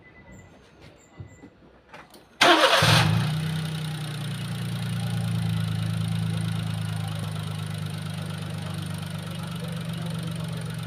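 Honda Life JB7's three-cylinder kei-car engine started about two seconds in: a short, loud burst of cranking as it catches, then it settles into a steady idle. A few light clicks come before the start.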